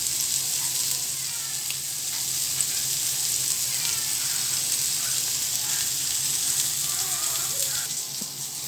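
Masala-marinated kala meen (Indian salmon) pieces shallow-frying in oil in a pan, with a steady high sizzle.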